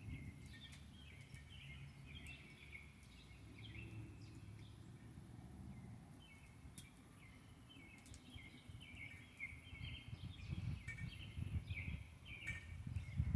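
Small birds twittering, with many short, quick chirps following one another without a break. Under them runs a low rumble that swells near the end, with a few sharp clicks.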